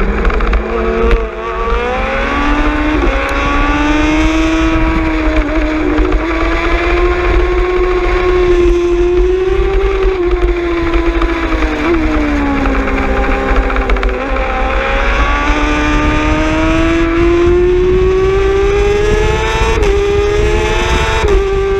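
Superbike engine at high revs, heard onboard, accelerating hard through the gears. The engine note climbs for most of the first half, sags for a couple of seconds around the middle, then climbs again, with low wind rush on the microphone throughout.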